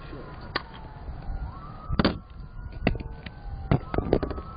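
Police car sirens wailing faintly, slow rising and falling sweeps from more than one siren crossing each other. Several sharp knocks and clatters cut in, the loudest about two seconds in.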